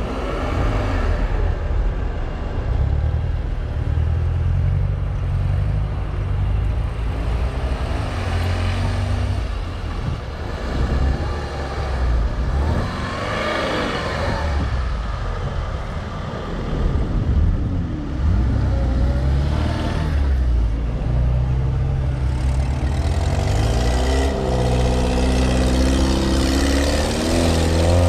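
Off-road 4x4 engines running and repeatedly revving up and down, the pitch rising and falling several times.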